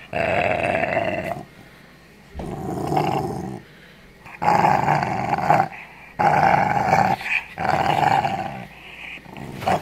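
Puppy growling over a chew bone that someone is trying to take from him: resource guarding. Rough growls come in about six bouts of roughly a second each, with short pauses between.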